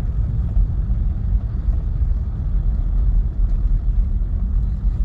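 Steady low rumble of a car's road and engine noise heard from inside the moving car.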